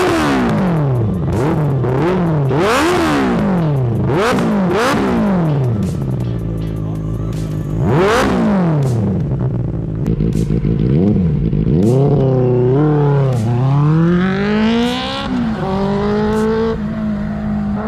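Benelli TNT 600i inline-four engine through an IXIL aftermarket exhaust, revved repeatedly: the note rises and falls about once a second. In the second half it climbs in longer rising runs, each ending in a sudden drop.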